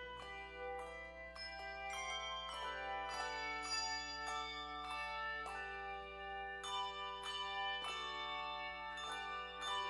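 Instrumental music of struck, ringing bell-like notes, several sounding together and overlapping as each one rings on, with new notes struck every half second or so.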